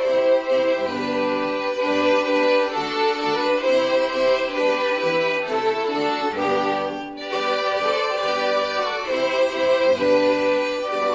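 A violin ensemble playing a slow melody in sustained bowed notes, with piano accompaniment. The music falls back briefly between phrases about seven seconds in.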